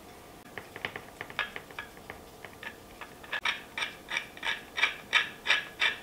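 Hand screwdriver driving a screw into a 3D-printed plastic cup-holder insert, making a run of short clicks: sparse at first, then steady at about three a second through the second half.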